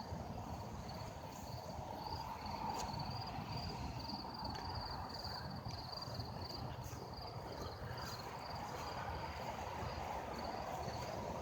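Crickets chirping in a steady, fast-pulsing high trill, over a faint low background noise.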